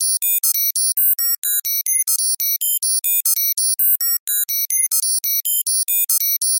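Synthesized computer data-processing sound effect: a fast, steady stream of short electronic bleeps, about six a second, each a cluster of high tones at a different random pitch.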